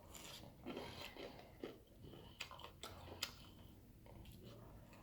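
Faint close-up chewing and mouth sounds of someone eating, with a few small, sharp wet clicks.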